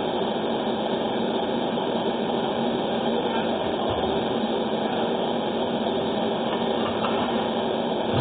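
Pot boiling on the stove, a steady rushing noise.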